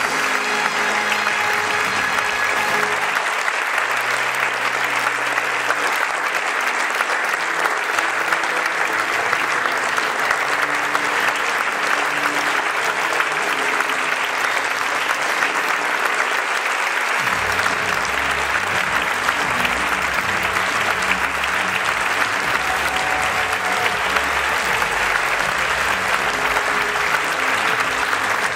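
Audience applauding steadily through a curtain call, with music playing underneath; a low bass line comes in a little past halfway.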